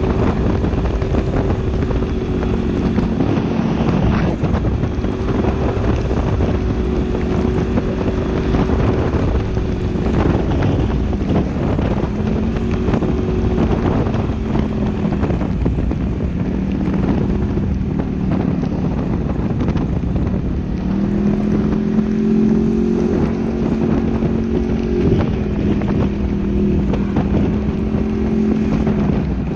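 Polaris RZR XP 900 side-by-side's parallel-twin engine running under way, its note stepping up and down as the throttle and speed change, with wind noise on the microphone and occasional knocks from the ride.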